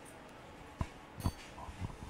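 Handling noise from a handheld microphone as it is passed between speakers: three short knocks, the second the loudest.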